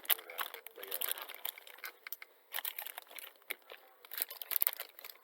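Plastic snack wrapper crinkling and crackling in irregular bursts as it is handled and torn open.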